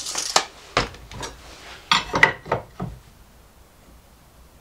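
A tape measure and a metal square handled and set down on a wooden workbench: a short rattle, then a series of clacks and knocks of metal and plastic on wood over about three seconds, after which it goes quiet.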